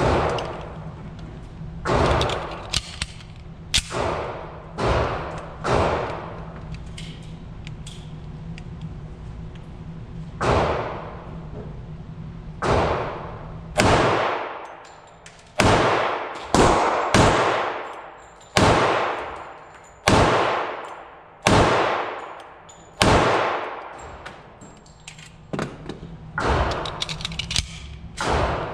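Pistol shots ringing out in an indoor concrete range, each followed by a long echo. In the middle comes a string of about eight shots roughly a second apart, fired from a Springfield Armory 1911 TRP in .45 ACP. Single shots come at irregular gaps earlier on.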